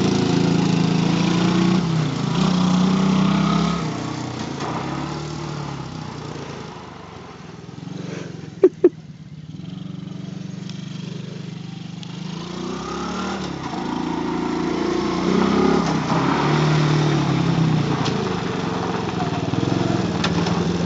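Small quad bike (ATV) engine revving as it rides off, fading into the distance, then growing louder again as it comes back. Its pitch rises and falls with the throttle. About halfway through, while the engine is faint, two short, sharp, loud sounds come in quick succession.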